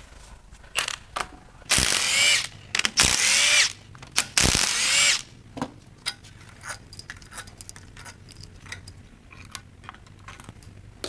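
A power wrench runs in three short bursts of under a second each, spinning out the cylinder head bolts of a GM 5.3L aluminum V8, its motor pitch rising and falling. Light metal clicks and clinks follow as the loosened bolts and valvetrain parts are handled.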